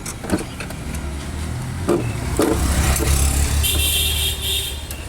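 A motor vehicle's low engine rumble, loudest in the middle, with several sharp knocks and a brief high-pitched horn-like tone near the end.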